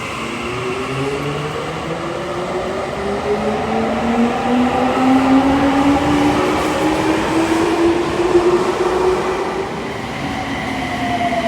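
Electric subway train accelerating away from the platform, the whine of its motors rising steadily in pitch over the rumble of the train. Near the end a separate falling tone begins.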